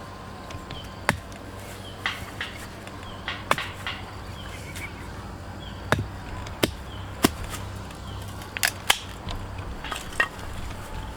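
A series of irregular sharp clicks and knocks, about a dozen spread unevenly, over a steady low background hum.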